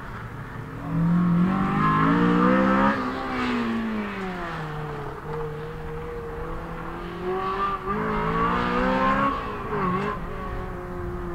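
Honda S2000's four-cylinder engine under hard acceleration on an autocross run: the pitch climbs steeply about a second in and runs loudest for a couple of seconds, then drops away and holds steady, before climbing again and dipping briefly near the end.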